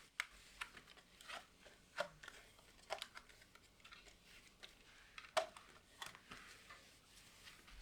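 Light handling sounds of household cleaning: irregular soft clicks and taps with faint rustling, the sharpest tap about five seconds in.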